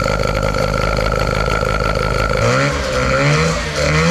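Mazda 10A peripheral-port rotary engine idling steadily, then revved in two quick blips from about two and a half seconds in. One of the crew reckons its ignition timing could be out.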